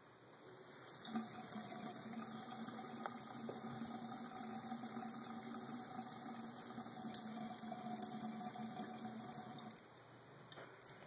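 Bathroom sink faucet running, water splashing into the basin. The flow builds over the first second, then drops away shortly before the end.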